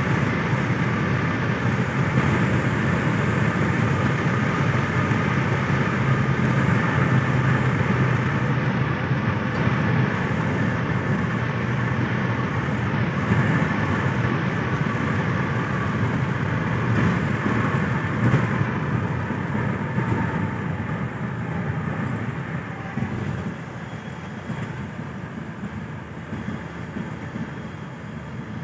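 Steady drone of tyres and engine heard from inside a moving car's cabin at highway speed. It grows quieter over the last several seconds.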